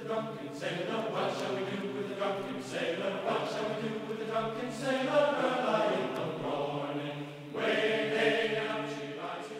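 Background music of slow, held chords with a choir-like, chanting sound.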